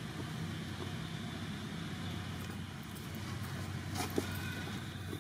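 A motor vehicle's engine running steadily with a low hum, with a few sharp clicks about four seconds in.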